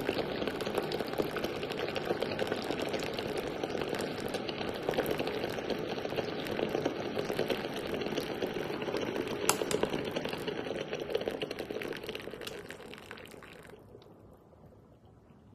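Water streaming steadily into a cup from a small electric instant hot-water dispenser, tapering off and stopping near the end.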